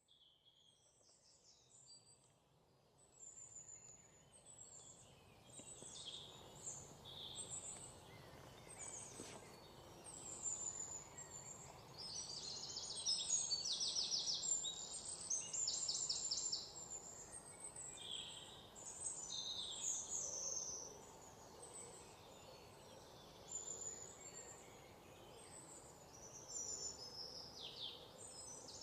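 Many small birds chirping and trilling, their high calls overlapping, over a faint steady background hiss; the sound fades in over the first few seconds.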